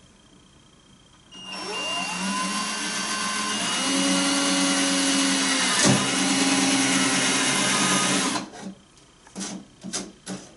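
Power drill boring a fastener hole through a multiwall polycarbonate sheet. The motor spins up with a rising whine about a second and a half in, runs steadily for about seven seconds with a sharp click partway through, then stops.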